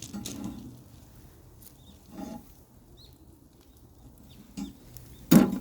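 Chickens clucking: a few short, separate calls, the loudest one near the end.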